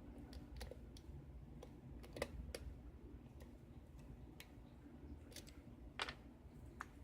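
Faint, irregular clicks of a lock pick working the pins of a six-pin pin-tumbler lock held under tension in a false set, about a dozen small ticks with a sharper one about two seconds in and another about six seconds in.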